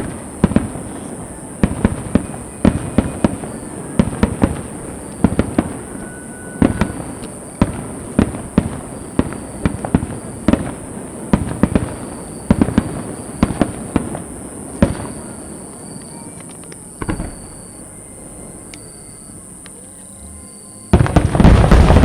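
Aerial fireworks shells bursting in a rapid-fire volley, several sharp bangs a second, thinning out after about fifteen seconds to a few scattered bangs. Near the end comes one much louder blast with a long rumble.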